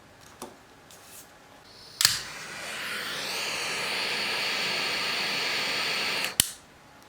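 A sharp click, then about four seconds of steady spraying hiss, ended by another sharp click, as when the nozzle of an aerosol spray can is pressed and released.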